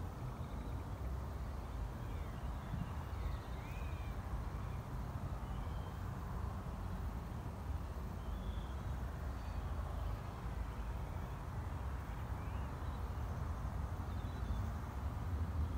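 Steady low wind rumble on the microphone, with a few faint, short bird chirps scattered through.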